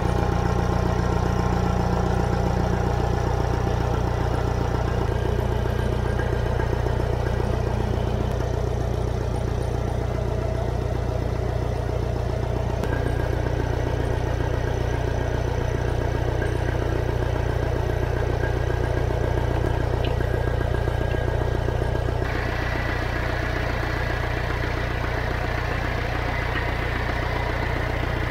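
International B414 tractor's diesel engine idling steadily.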